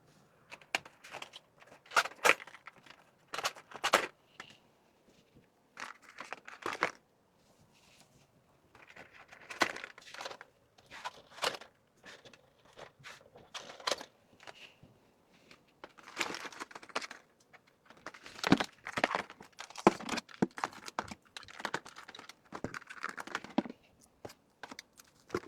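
Plastic packaging crinkling and rustling in irregular bursts, with small clicks and taps, as items are handled and packed into an order by hand.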